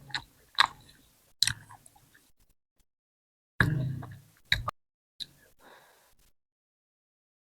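Close-miked chewing with wet mouth clicks and lip smacks, in short bursts, as a mouthful of bhindi keema and roti is eaten; a longer, denser run of smacks comes a little past halfway.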